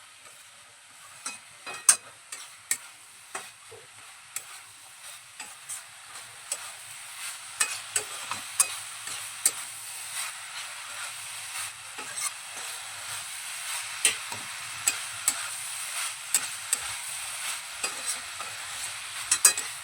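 A utensil stirring and mixing banana-flower curry in a pan over the heat: a soft sizzle with irregular clicks and scrapes of the utensil against the pan.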